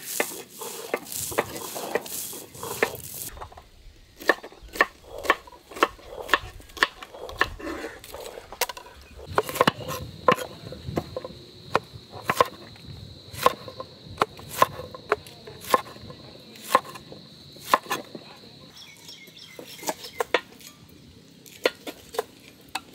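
Kitchen knife chopping fresh okra on a wooden board: sharp separate chops, roughly one to two a second. In the first few seconds there is a denser rough scraping, the stone roller grinding turmeric on a flat grinding stone, and a thin steady high tone runs through the middle stretch.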